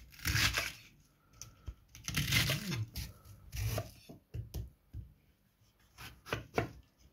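Kitchen knife slicing through lettuce on a wooden chopping board, a few loud crunching strokes. From about four seconds in, a cucumber is chopped: a run of sharp knife taps on the board.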